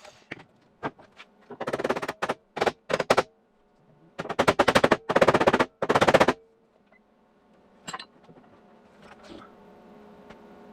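MIG welder laying a series of short tack and stitch welds on car body sheet metal, each a burst of crackling, the longest about two seconds. A faint hum and a couple of clicks follow once the welding stops.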